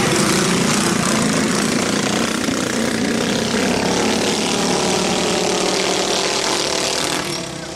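Engines of several racing minibikes running hard as the pack passes close by. The sound drops off sharply near the end as the bikes pull away across the track.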